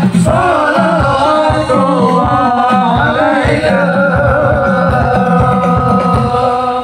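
Live band music over a PA: several male voices singing a melismatic line over keyboard and a steady drum beat, ending on one long held note.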